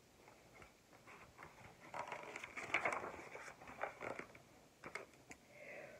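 Paper rustling and soft handling clicks as a page of a hardcover picture book is turned, strongest about two seconds in.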